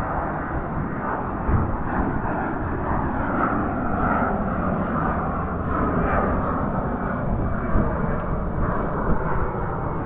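Airliner's jet engines running, a steady noise with wavering high tones, over strong wind buffeting the microphone.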